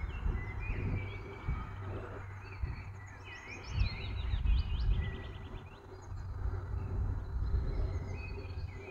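Wild songbirds calling and singing, with a fast, even trill about four seconds in, over a low, irregular rumble that swells and fades.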